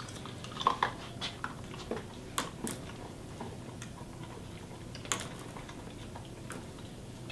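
A few scattered light clicks and taps, irregularly spaced, against a quiet background.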